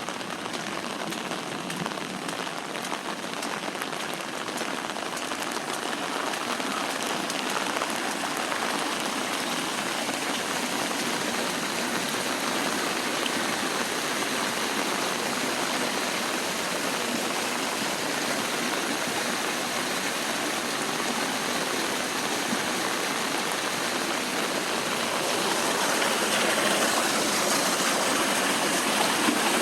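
Steady rush of heavy storm runoff pouring through a ditch drain into a retention pond, mixed with falling rain, growing louder near the end.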